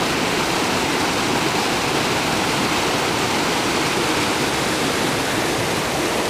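Small waterfall on a mountain creek, white water pouring over rocks into a pool, with a steady rushing sound.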